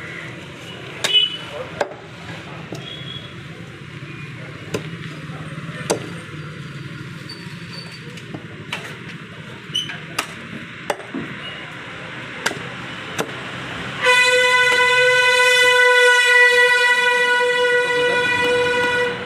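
Butcher's cleaver chopping singed lamb heads on a wooden chopping block: about ten sharp chops at irregular intervals. About two-thirds of the way in, a vehicle horn sounds one long steady blast of about five seconds, the loudest sound, and cuts off just before the end.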